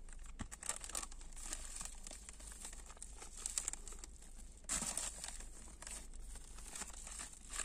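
Plastic mailer bag and bubble wrap crinkling and rustling as hands open the package, with a louder burst of crackling about five seconds in.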